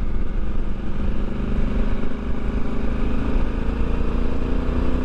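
Honda Africa Twin's parallel-twin engine running at a steady road speed, mixed with wind and road noise on the microphone. The engine note is steady, standing out a little more in the second half.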